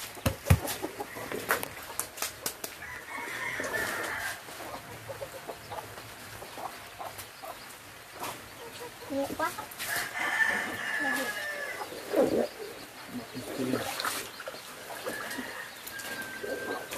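A rooster crowing three times, each crow lasting about a second. Between the crows there are scattered clicks and knocks from hands and tools working a scalded pig carcass in a tub of hot water.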